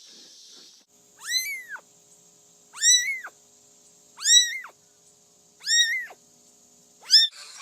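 A cat meowing four times, high-pitched and evenly spaced about a second and a half apart, each meow rising then falling in pitch, with a short fifth meow near the end.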